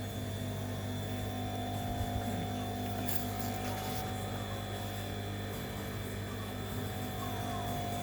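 Industrial overlock's clutch motor running with a steady electric hum while the machine is not sewing, with a couple of faint clicks about two and three seconds in.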